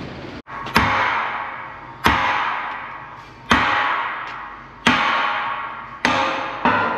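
Heavy hammer striking steel five times, a little over a second apart, each blow ringing out and fading before the next.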